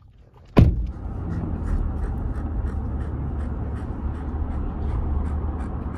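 A sharp thump, then the steady low rumble and rush of a vehicle moving with a side window open: road and wind noise inside the cab.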